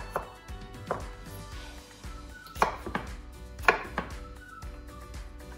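Kitchen knife cutting a fresh cucumber into short sticks on a wooden chopping board: about five separate knife strokes knocking on the board at uneven spacing, the two loudest about two and a half and three and a half seconds in.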